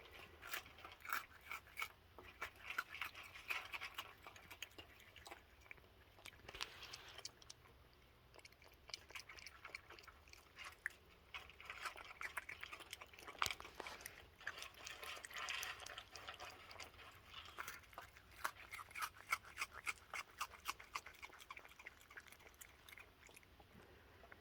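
Raccoons chewing and crunching on cookies: a faint, irregular run of small crisp crunches and smacks that comes in clusters.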